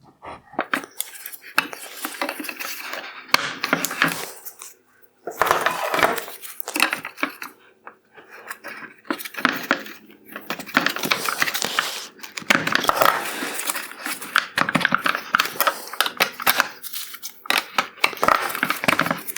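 Needle-nose pliers working the plastic tabs of a 2015 Chevrolet Malibu halogen headlight's lower projector mounts: irregular clicks, clinks and scraping of metal on hard plastic as the projector is worked loose, with short pauses about five and eight seconds in.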